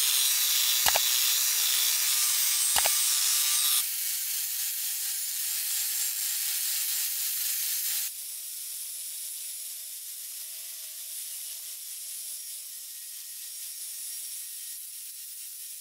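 Angle grinder with a sanding disc grinding rust off an iron scissors blade: a steady motor whine under a hissing grind, with a few sharp ticks in the first three seconds. The sound steps down in level about four seconds in and again about eight seconds in, the whine changing pitch each time.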